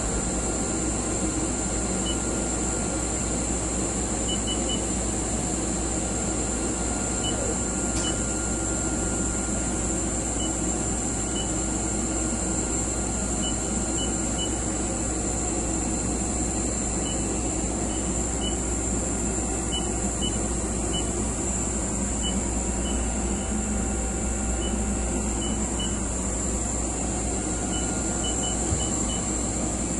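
Steady machinery hum with a constant high hiss, unchanged throughout, with faint scattered ticks.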